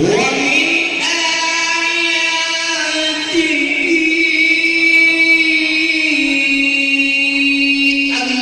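A Quran reciter's voice holding one long melodic note in tilawah style, drawn out for about eight seconds with slight wavering ornaments partway through.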